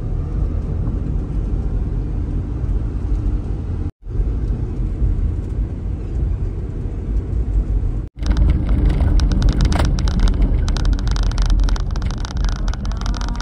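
Cabin noise of a Suzuki Carry mini truck on the move: a steady low engine and road rumble. About two-thirds of the way through it gets louder and rougher, with many knocks and rattles as it drives over a bumpy, potholed dirt road.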